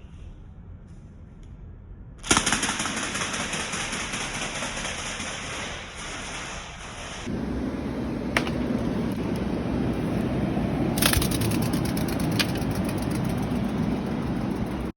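Rubber-band ornithopter's flapping wings, driven by the unwinding rubber band, making a fast, steady rattling buzz that starts suddenly a couple of seconds in. Its tone changes about halfway through, with a few sharp clicks near the end.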